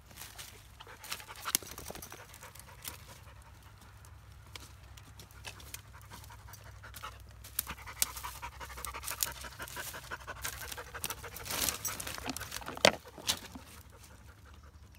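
Kars shepherd dog panting as it goes at a hollow tree trunk, with scattered clicks and cracks throughout and one sharp, loud crack near the end.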